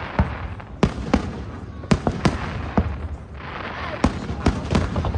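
Fireworks display: a string of sharp bangs from bursting aerial shells, roughly two a second, over a continuous rumble and echo, with a spell of dense crackling about three seconds in.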